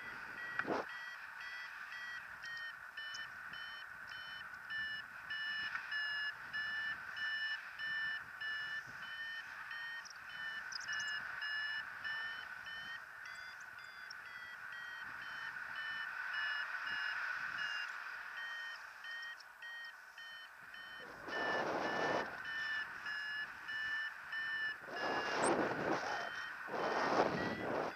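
Paragliding variometer beeping in short pulses about twice a second, its pitch shifting a little up and down: the climb tone that signals the glider is rising in lift. Gusts of wind rush over the microphone twice near the end.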